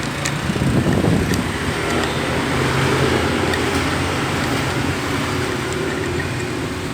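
Steady street traffic noise of passing vehicles, swelling about a second in and holding, with a couple of faint clicks early on.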